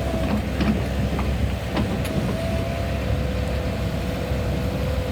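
Heavy construction machinery running: a steady diesel engine rumble with a steady whine over it, and a few brief clanks in the first two seconds.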